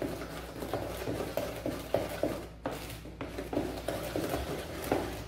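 A spoon stirring thick cake batter in a plastic bowl, wet scraping strokes at a steady pace of about three a second.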